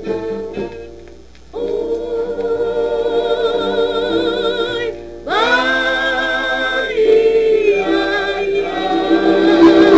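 Recorded song with a woman singing long held notes with a strong vibrato. There is a brief break about five seconds in, then she swells into a new sustained note.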